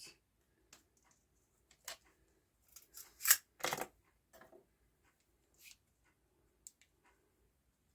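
Handling noise as a fixed-blade knife and measuring tools are moved about on a table: scattered light scrapes, rustles and clicks, the loudest pair about three and a half seconds in.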